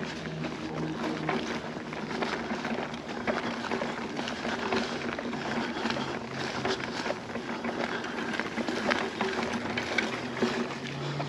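Segway Ninebot Max G2 electric scooter riding on a paved path: a steady rush of tyre noise on asphalt with frequent small clicks and rattles, and a faint low hum.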